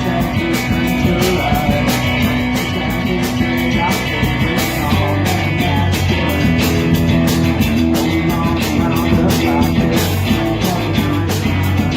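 A rock band playing: a drum kit keeping a steady beat on the cymbals, with bass guitar holding sustained low notes that shift every second or two.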